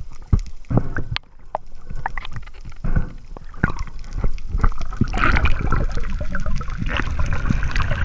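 Water rushing and gurgling past an underwater camera as a diver swims and kicks over a reef, with many irregular sharp clicks and knocks that grow denser in the second half.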